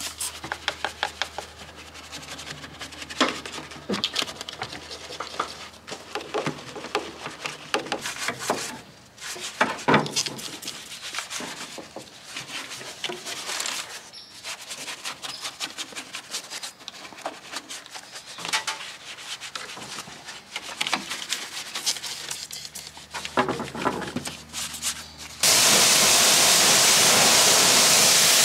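Brush scrubbing a soapy engine bay, with irregular scratchy strokes and clicks. About three seconds before the end a pressure washer starts with a loud, steady hiss of spraying water.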